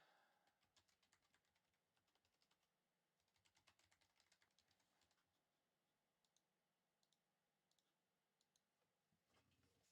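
Near silence, with faint scattered clicks and a denser run of them in the middle.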